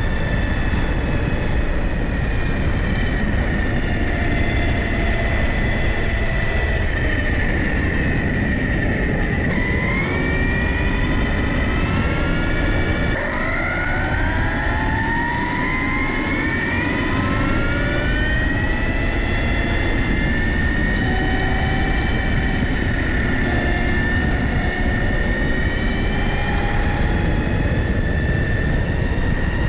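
Arrma Kraton 6S RC car's brushless electric motor and drivetrain whining at speed over a steady rumble of tyres on the road, heard from a camera mounted on the car. The whine drops in pitch as the car slows about eight to ten seconds in, then climbs again as it accelerates back up to speed.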